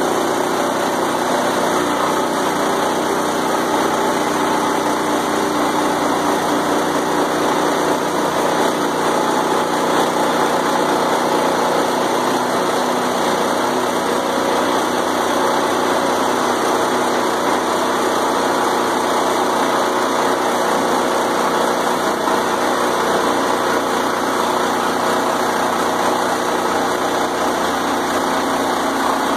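Woodland Mills portable band sawmill's small gasoline engine running steadily at a constant speed.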